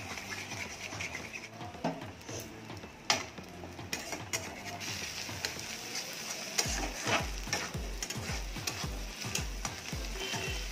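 Metal spatula stirring and scraping scrambled eggs with onions, capsicum and green chillies around a metal kadai, over a steady sizzle of frying. About two-thirds of the way through, the stirring strokes settle into a steady rhythm of about two a second.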